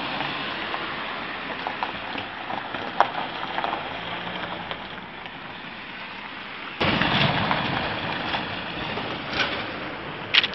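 Road-side traffic noise on a phone microphone: a steady hiss of passing cars, with a sudden loud rush about two-thirds of the way in that fades slowly, and a couple of sharp clicks.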